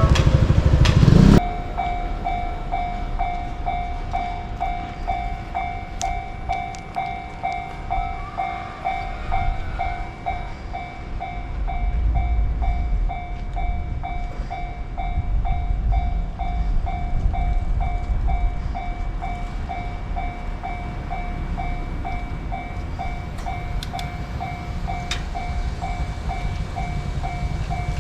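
Japanese level-crossing electronic warning bell ringing steadily, about two dings a second, over the low rumble of a passing train that swells in the second half. A louder, different sound cuts off about a second in.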